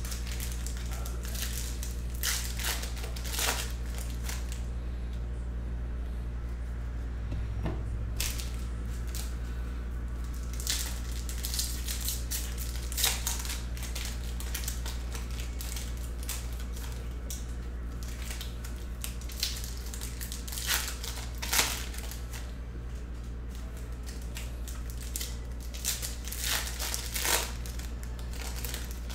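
Trading-card pack wrappers crinkling and tearing as packs are ripped open and crumpled, in repeated short clusters of rustling, over a steady low hum.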